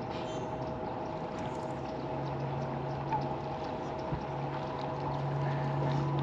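Steady hum of a bow-mounted electric trolling motor, with a lower hum joining about two seconds in, over a wash of water noise.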